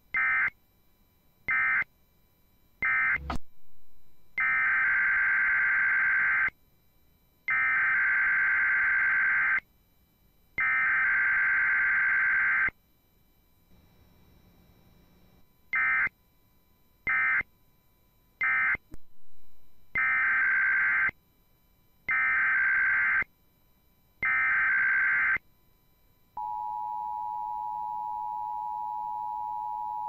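Emergency Alert System SAME data bursts: three short buzzy screeches, then three longer ones of about two seconds each, then three short and three long again. About 26 seconds in, the steady two-tone EAS attention signal begins and holds.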